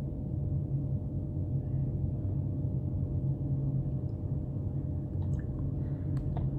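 Steady low background hum, with a few faint ticks about five to six seconds in.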